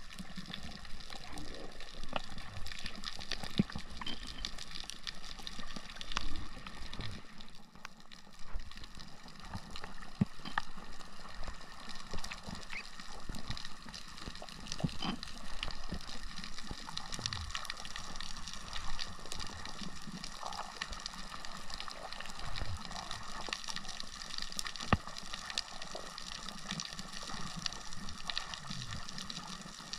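Underwater ambience on a coral reef, heard through the camera's housing: a steady water hiss with many scattered sharp clicks and an occasional low swoosh of water movement.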